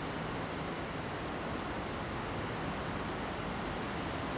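Steady, even rumble of a distant Soviet VL10U electric freight locomotive and its train rolling toward the listener.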